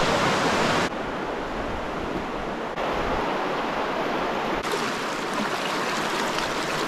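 Rushing flow of the Virgin River in The Narrows slot canyon, a steady wash of water noise. Its level and character jump abruptly about a second in, just before three seconds and near five seconds.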